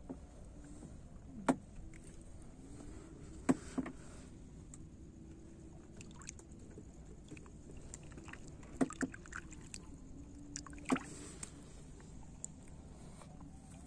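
Sharp wooden knocks and bumps on a small wooden fishing boat, heard a few times at uneven intervals, over faint water noise and a steady low hum.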